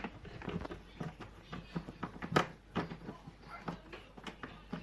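A screw being turned out of a kitchen cupboard hinge by hand: a run of small, irregular clicks and taps, with one sharper knock about two and a half seconds in.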